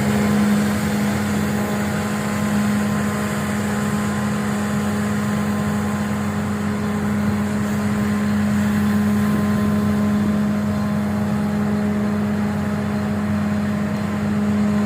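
Leaf vacuum truck's engine and suction blower running steadily: a constant drone with an even hum and no change in pitch.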